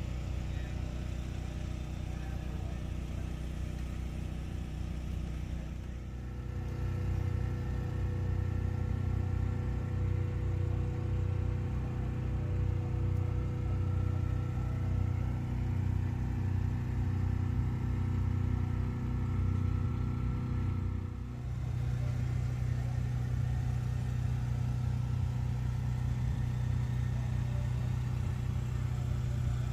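An engine idling steadily, getting louder about six seconds in and dipping briefly about 21 seconds in.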